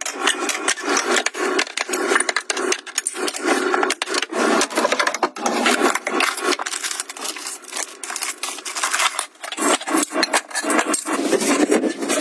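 Hard drawer dividers and jars clattering and rubbing as they are handled, lifted and set down in a kitchen drawer: a dense, busy run of clicks and knocks.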